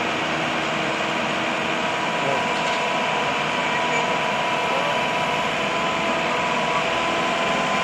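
Engine of a truck-mounted crane running steadily, with a steady whine over it.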